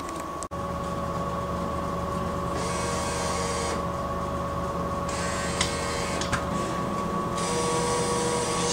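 A vending machine's bill acceptor motor whirring three times, in runs of one to two seconds, as a paper bill is fed into the slot. A steady electrical hum runs underneath.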